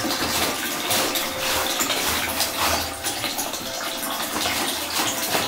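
Running water splashing steadily and unevenly while a dog is washed in a bath.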